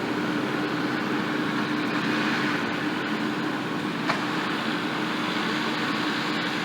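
Case skid steer's diesel engine running steadily with a constant hum, and a single small click about four seconds in.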